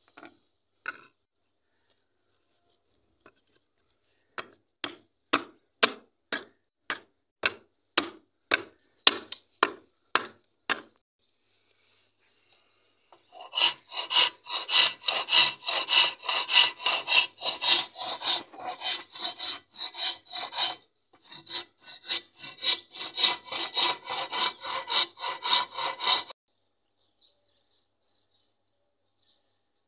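Wood being rasped by hand: about a dozen separate scraping strokes, roughly two a second, then about thirteen seconds of fast, continuous strokes of a steel file along a new wooden hammer handle clamped in a vise, which stop suddenly.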